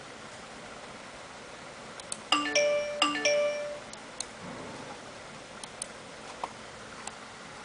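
Windows device-connect chime: a two-note rising tone, played twice in quick succession about two seconds in, as the uDMX USB interface is detected. A few faint clicks are scattered around it.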